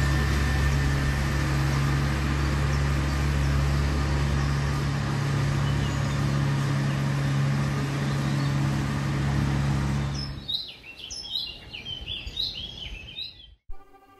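A steady low motor hum that cuts out about ten and a half seconds in. Birds then chirp for a few seconds.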